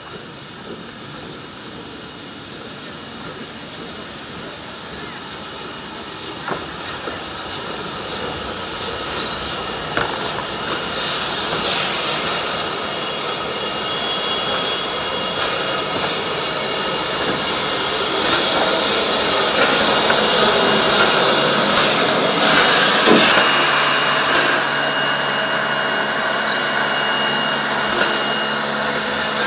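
Steam hissing from the 1925 Commonwealth Railways NM class steam locomotive NM25, growing steadily louder. Thin steady tones join the hiss in the second half.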